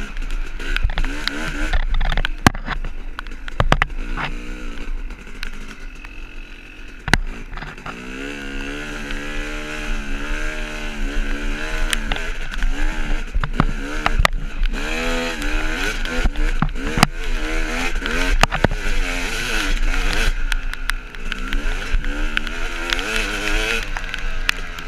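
Dirt bike engine under way, its pitch rising and falling again and again as the rider works the throttle and gears. A constant low rumble runs underneath, and sharp knocks come now and then from the bike bouncing over the rough trail.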